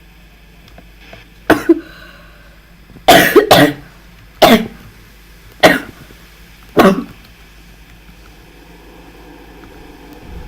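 A person coughing close to the microphone: a run of about six sharp coughs roughly a second apart, some in quick pairs. A faint low hum lies underneath.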